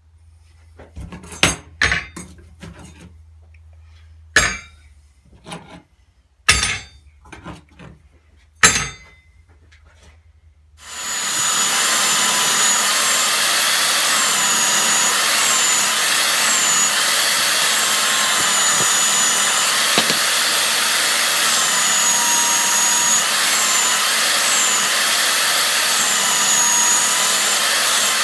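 A few sharp wooden knocks and clatters, then, about 11 seconds in, a belt sander starts up and runs steadily while a pallet slat is sanded on its belt, its whine dipping each time the wood is pressed on.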